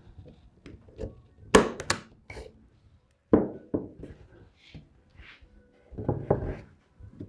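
Three sharp snaps from a hand-held spring-loaded point driver firing fasteners to hold the backing board in a wooden picture frame. Duller thumps and rubbing follow as the frame is handled and shifted on the bench.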